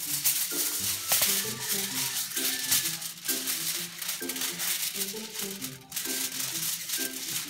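Background music: a melody of short stepping notes over a steady, bright rattle like a shaker.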